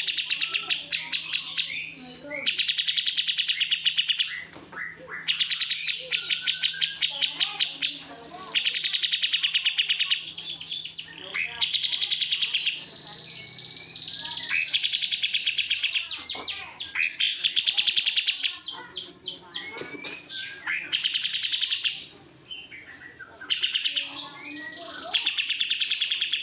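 Kapas tembak songbird singing its tutor song: repeated bursts of very rapid, high-pitched rattling trills, each lasting a second or two with short pauses between.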